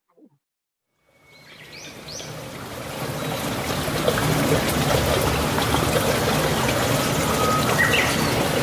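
Flowing stream with birds chirping, a nature-sound recording that fades in over the first few seconds and then holds steady. It stands in for the speaker's music, which was muted for copyright.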